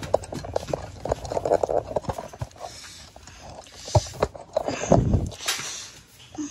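Irregular footsteps and rustling handling noise from a body-worn camera as its wearer moves quickly, with louder thumps about four and five seconds in.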